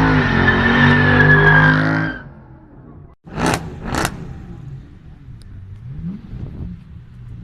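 A performance car's engine running loud under throttle, its pitch shifting, then falling away about two seconds in. After a brief break come two sharp bangs about half a second apart, then quieter engine sound.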